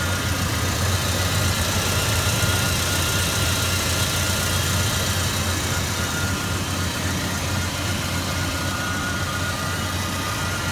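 A 1999 Chevy S10's 2.2 liter four-cylinder engine idling rough and steady. The owner's scan shows a misfire on cylinder 1.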